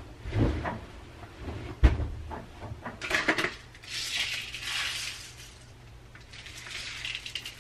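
Laundry being handled at an open front-loading washer: a few knocks and clinks against the drum in the first two seconds, then cloth rustling as clothes are moved in and out of it.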